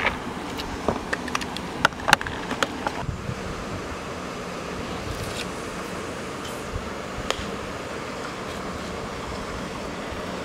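Steady wind noise on the microphone by the lake, with a handful of sharp clicks and knocks from handling in the first three seconds.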